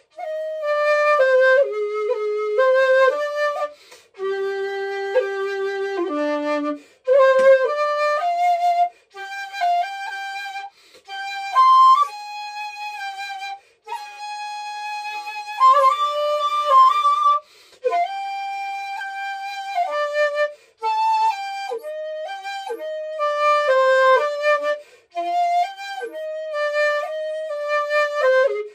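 Solo shakuhachi (Japanese end-blown flute) playing a slow traditional melody: long held notes one to two seconds each, stepping between pitches, with short breath gaps every few seconds and sharp accented attacks on some notes.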